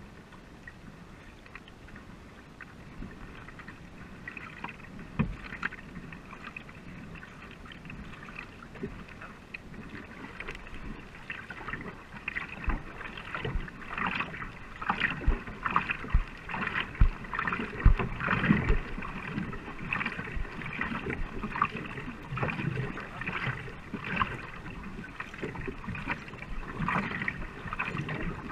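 Racing canoe paddles catching and pulling through the water with regular splashes about a second apart, over water rushing along the hull; the strokes get louder about halfway through.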